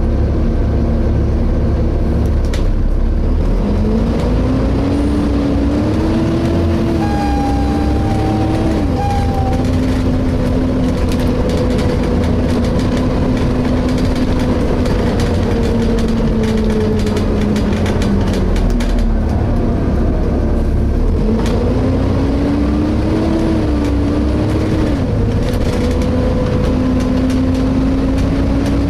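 Interior of a Volvo B7TL double-decker bus on the move: a steady low rumble from the engine, with a whining tone that rises in pitch in steps as the bus pulls away, holds and slowly sinks, then rises again near the end. The whine is the kind of howling whose source the owner cannot place.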